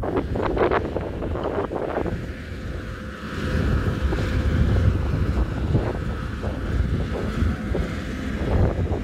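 Wind buffeting the microphone, a rumbling noise that swells and eases with the gusts, with a few short sharper sounds in the first couple of seconds.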